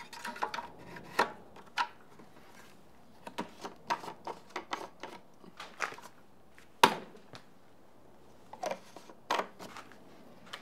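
Irregular sharp clicks, taps and knocks of hands working on a push mower's engine: the oil dipstick being handled and fitted back into its filler tube, and the plastic engine cover being pressed. The loudest is a single snap about seven seconds in.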